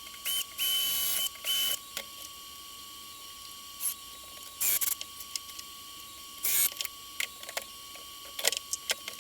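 Workshop handling sounds: scattered clicks and knocks, with a few short bursts of noise, the longest just under a second near the start.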